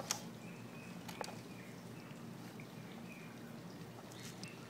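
A hand working in a plastic basin of water: faint sloshing with two small sharp clicks about a second apart. Faint bird chirps behind.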